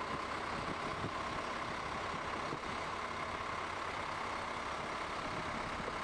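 Bridge girder launcher's drive machinery running steadily as it carries a concrete girder along its trusses: an even engine-like hum with a thin steady whine.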